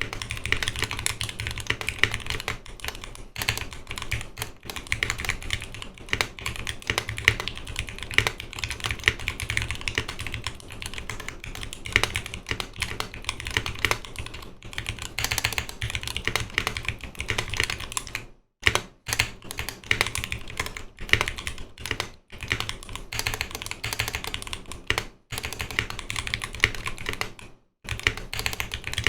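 Continuous fast typing on a custom mechanical keyboard (Noxary 280 with a 5 mm polycarbonate plate, lubed Zealio 78g V2 tactile switches and GMK keycaps): a dense stream of keystroke clacks with a few short pauses in the second half.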